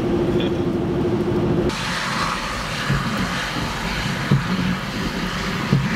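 Steady drone of a car driving, heard from inside, with a steady hum. Under two seconds in it cuts abruptly to a steady hiss with a few soft low thumps.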